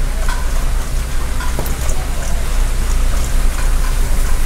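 Steady rushing hiss of restaurant kitchen background noise over a low hum, with a few faint light ticks.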